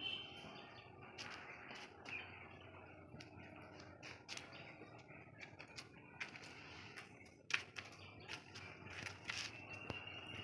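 Wet clothes being handled and draped over a clothesline: soft, irregular rustles and flaps of cloth, with one sharper click about seven and a half seconds in. Faint bird chirps sound behind it.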